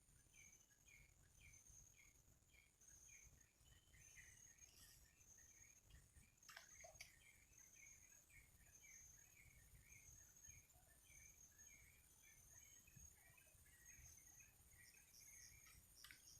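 Faint rural ambience: a bird repeating a short chirp about two or three times a second, over a steady high insect drone and a low rumble, with a soft click about six seconds in and another near the end.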